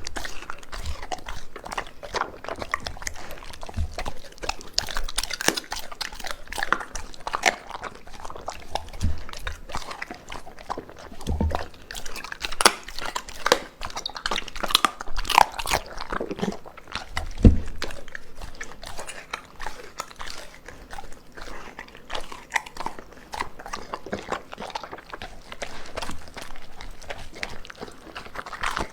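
A dog eating raw food and vegetables: steady irregular chewing, crunching and wet biting, with a few dull knocks, the loudest about two-thirds of the way through.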